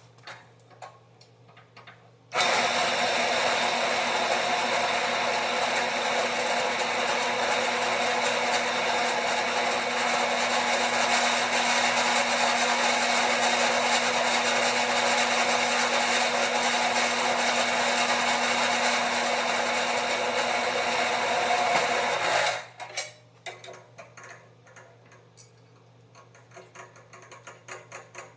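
Electric drill running steadily under load, drilling out a hole in a seat-mounting bracket. It starts about two seconds in, runs for about twenty seconds and stops abruptly, with light clicks and handling noises around it.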